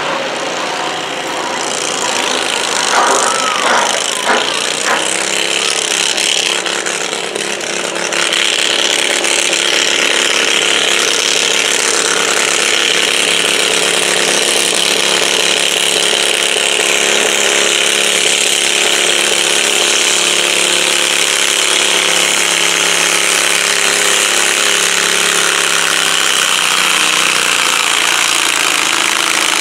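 Simplicity garden tractor's engine running. About eight seconds in it revs up and holds a loud, steady run as it pulls the weight-transfer sled down the track.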